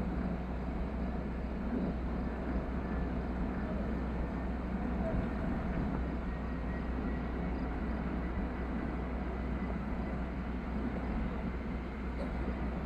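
Airbus A319 jet engines heard across the airfield as it descends and touches down: a steady rush with a faint high whine from about halfway through that drops slightly near the end.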